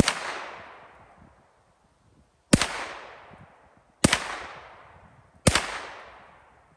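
Four single gunshots from a firearm fired one trigger pull at a time. The first shot is followed by a pause of about two and a half seconds, then three shots about a second and a half apart. Each shot has a long echo trailing away behind it.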